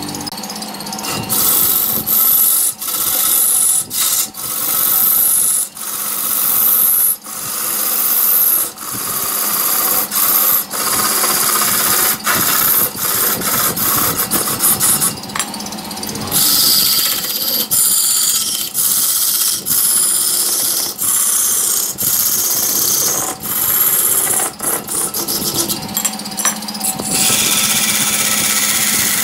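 A hand-held turning tool scraping into a large log spinning on a wood lathe, peeling off thick shavings in repeated strokes with brief pauses, over the steady hum of the running lathe.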